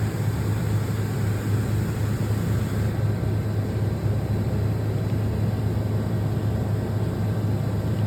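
Quaser MV184E CNC vertical machining center running a cutting program: a steady low hum with an even wash of machine and coolant noise, no distinct knocks or changes.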